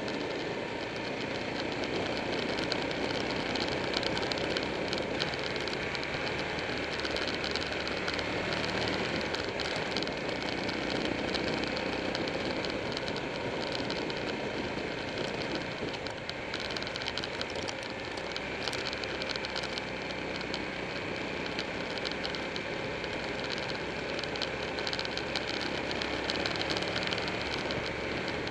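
Motorcycle engine running at road speed with heavy wind and road noise on a bike-mounted camera, the engine note rising and falling a little through the curves.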